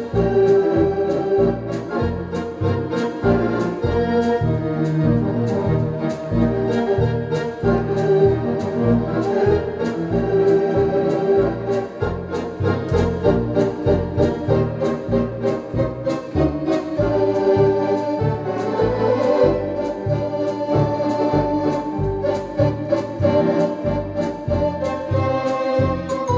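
Ringway RS620 two-manual electronic organ played in the Blackpool style: held melody and chord notes over pulsing bass notes and a steady, regular drum beat.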